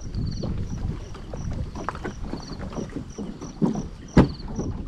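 Wind rumbling on the microphone over small knocks and splashes, with a steady high insect chirp pulsing about three times a second. One sharp knock sounds a little after four seconds in.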